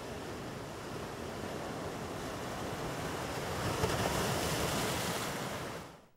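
Ocean surf washing in, with wind: a steady rush that swells about four seconds in and then fades out near the end.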